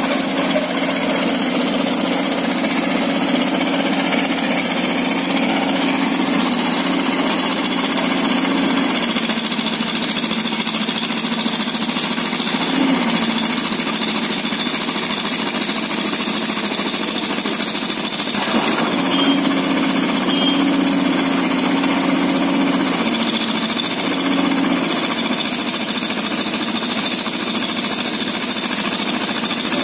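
Hitachi mini excavator's diesel engine running steadily, with a droning tone that fades out and comes back several times.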